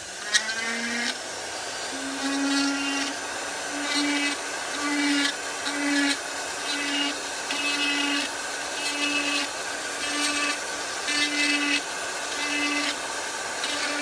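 Dremel rotary tool spinning up and carving lines into wood: a steady high whine that surges in short strokes about once a second as the bit bites, then stops near the end.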